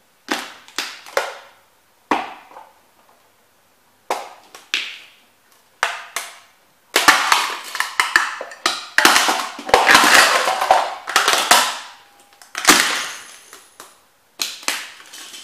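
Boots stamping on plastic model railway houses. First come a few separate cracks and stomps, then from about seven seconds in a long run of crunching and snapping plastic that lasts about five seconds. A few more crunches follow near the end.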